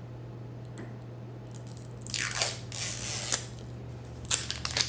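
Fine-mist pump spray bottle sprayed twice, two short hisses about two seconds in, followed by a light plastic click near the end.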